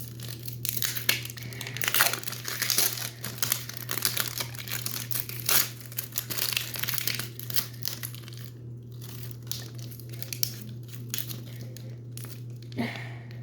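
Thin plastic wrapping crinkling and tearing in irregular bursts as it is pulled off a small toy capsule.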